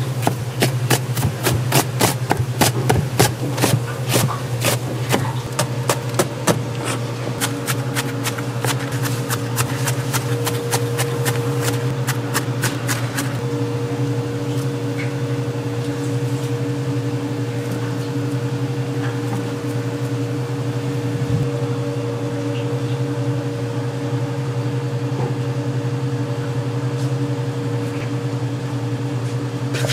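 Fast, irregular sharp knocks of kitchen prep work, dense at first and thinning out by about halfway, over a steady low hum of kitchen equipment.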